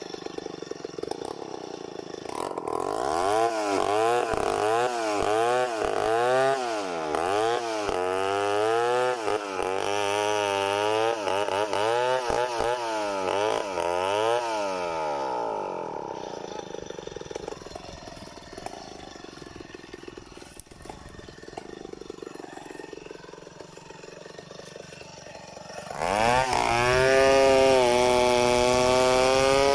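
Large two-stroke chainsaw of the Stihl 070 type ripping lengthwise through a big log. For most of the first half its engine pitch swings up and down about once a second, then it drops to a quieter, lower running for about ten seconds, and near the end it jumps to a loud, steady high-rev cut.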